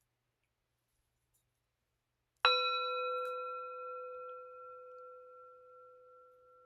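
Near silence, then about two and a half seconds in a meditation bell is struck once and rings on, fading slowly. It is the signal that ends the silent meditation sit.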